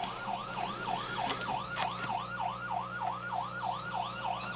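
An emergency-vehicle siren in fast yelp mode, its pitch sweeping up and down about three times a second, over a steady low hum.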